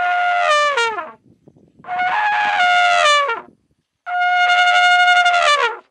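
Elephant trumpeting: three long calls, each held on one pitch and then dropping sharply at the end.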